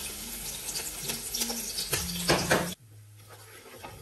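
Diced onions sizzling and crackling as they hit hot bleached palm oil in a pot. The sizzle cuts off suddenly about three seconds in, leaving a faint low hum.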